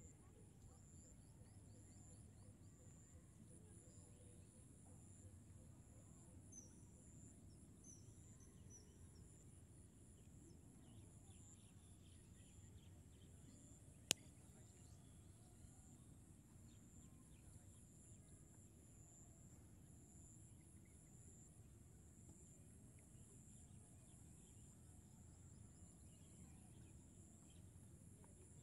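Faint outdoor ambience near silence: a steady high chorus of insects, a few short bird chirps several seconds in, and one sharp click about halfway through.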